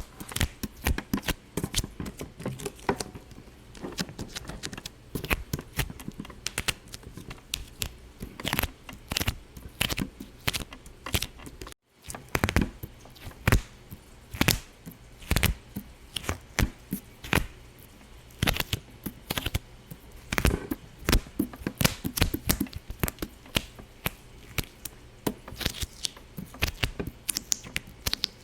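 Rapid, irregular popping and clicking, several sharp pops a second of uneven loudness, broken by a brief gap about twelve seconds in.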